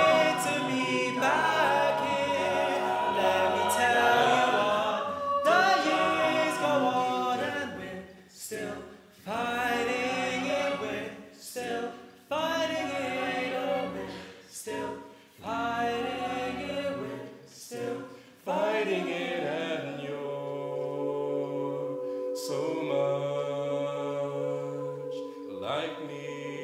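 A cappella group singing in close harmony, voices only. The phrases are cut by several short, abrupt breaks, and in the last third the group holds long sustained chords over a low bass note.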